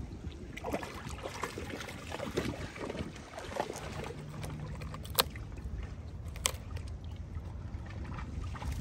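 Shallow water lapping and splashing in small irregular bursts over a low rumble, with two sharp clicks about halfway through and again about a second later.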